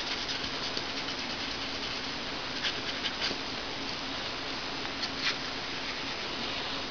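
A cloth rubbing over small copper and brass pendants as they are polished after blackening: a steady soft hiss with a few light scratches and taps, about three seconds in and again about five seconds in.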